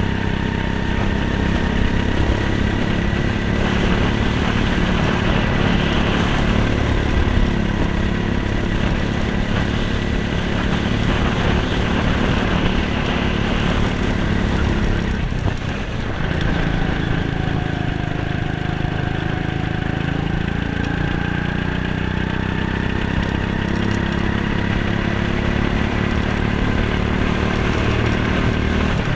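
Go-kart engine running at speed around a track, its pitch rising and falling with the throttle, with a brief dip in level about halfway through.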